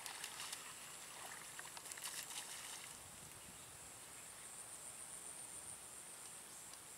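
Insects droning steadily at a high pitch, with a scatter of faint crackling clicks over the first three seconds.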